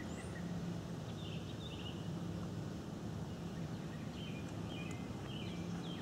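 Quiet outdoor ambience: a few short, faint bird chirps over a low, steady hum.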